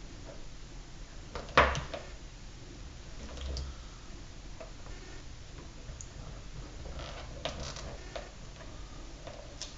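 Scattered light taps and clicks of objects being handled, with one sharper knock about a second and a half in and a few more near the end.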